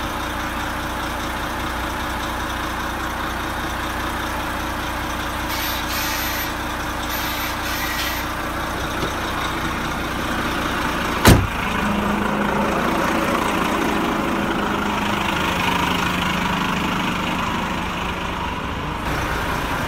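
Renault T460 truck's diesel engine idling steadily. A single sharp knock comes about 11 seconds in, and the idle hum rises a little and holds steady from then on.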